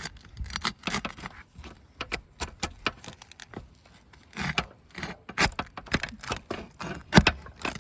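Steel flat bar working under asphalt roof shingles to pry them up and expose the nail: an irregular run of metallic scrapes, clicks and crackles, the sharpest about seven seconds in.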